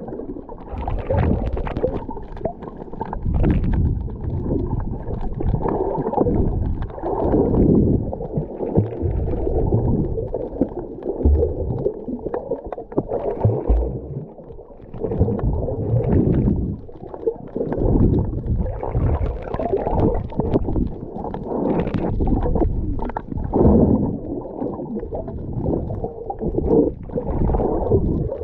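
Muffled underwater rumble and sloshing picked up by a submerged camera, swelling and fading unevenly as the water moves around it.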